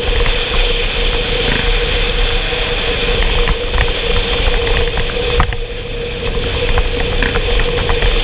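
Motorcycle engine running as the bike rides along at a steady pace, with wind and road noise on the bike-mounted camera. The sound dips briefly about five and a half seconds in, then carries on.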